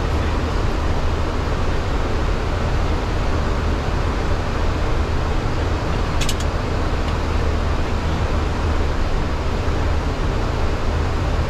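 Steady cockpit noise of a Boeing 737-800 with its engines running: a constant deep rumble under an even rush of air. A short click sounds about six seconds in.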